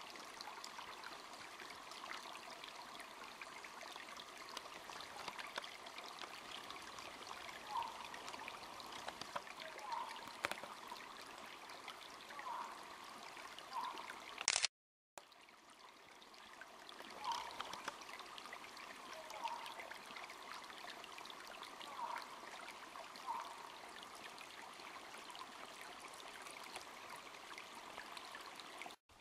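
A steady rushing, water-like hiss with a few faint short chirps scattered through it; about halfway through, a sharp crackle and a half-second dropout break it.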